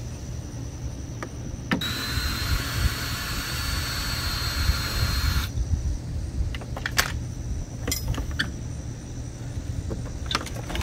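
Cordless drill with a 7 mm socket on a quarter-inch adapter, running with a steady whine for about three and a half seconds as it backs out small screws from a car's radiator cooling box. Later come a few sharp clicks and knocks.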